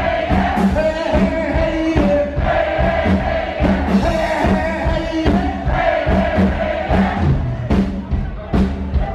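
Live rock and roll band playing, with a steady drum beat under long held melody notes.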